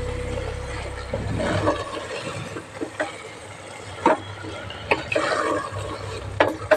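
Steady hissing from food cooking in a pressure cooker pot, with a spoon knocking against the metal four times.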